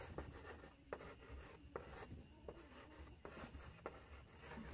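Chalk writing on a blackboard: faint scratching strokes with a few sharp taps as the letters are formed.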